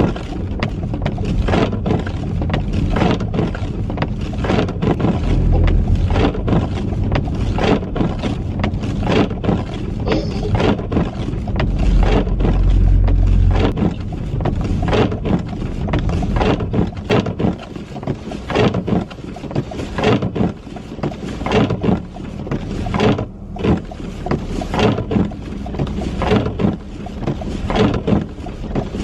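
Car cabin noise while driving on a snowy highway in a snowstorm: a steady low road rumble that swells twice, with a dense run of irregular knocks and clatter.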